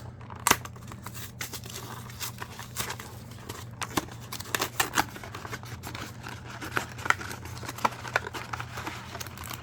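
Cardboard trading-card mini boxes and foil card packs being handled and opened by hand: a string of small clicks, scrapes, tearing and crinkling, over a steady low hum.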